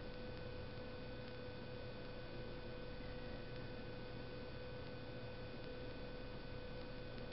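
Steady electrical hum of several unchanging tones, one clearly stronger than the rest, over faint room tone.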